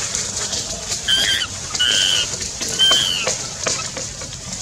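Three short, high-pitched animal squeaks about a second apart, each falling slightly at the end, over a steady hiss.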